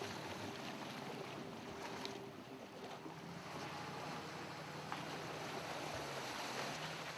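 Allison V12 drag-boat engine heard faintly, running steadily, its tone dropping to a lower pitch about three seconds in, with a wash of wind and water.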